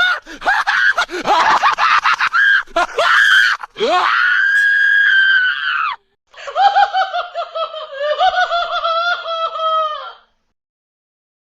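Horror clown's hysterical evil laugh: a rapid cackle, then a long high-pitched shriek held for about two seconds, a brief break, and a wavering high laugh that slowly drops in pitch and stops about ten seconds in.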